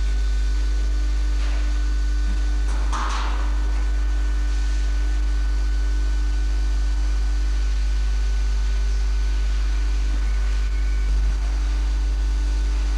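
Steady low hum of a CNC tool grinding machine running, with a short hiss about three seconds in and a brief low thump near the end.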